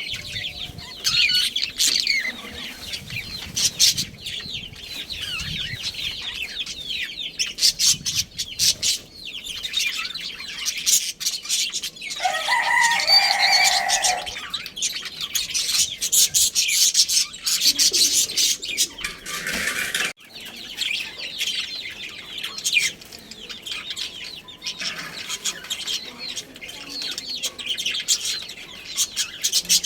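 Budgies chirping and chattering continuously in quick high warbles, with scattered clicks. A lower, drawn-out call, a rooster crowing, comes once about twelve seconds in.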